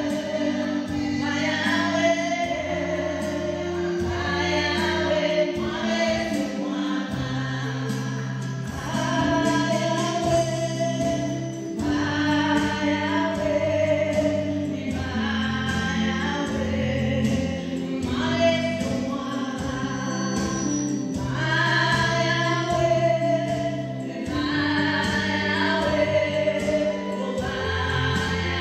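Women singing a gospel song into microphones, over an accompaniment with a bass line that steps from note to note every second or two.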